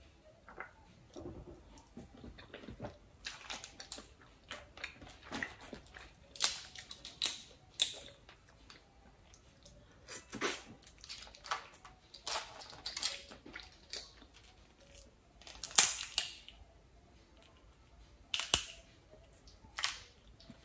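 Boiled crawfish being peeled by hand: shells cracking and snapping, with wet sucking and eating noises at the mouth, in irregular bursts and a few sharp louder cracks.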